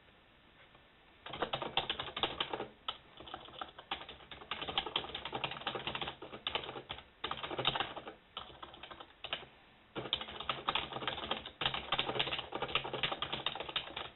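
Typing on a computer keyboard: fast runs of key clicks broken by short pauses, starting about a second in.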